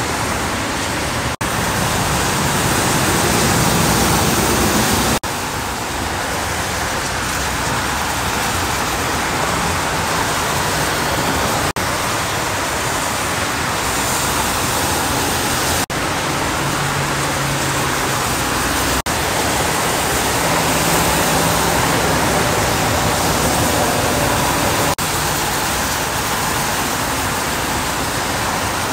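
Steady freeway traffic noise on wet pavement: tyres hissing through water as cars and semi-trucks pass, broken by a few brief dropouts.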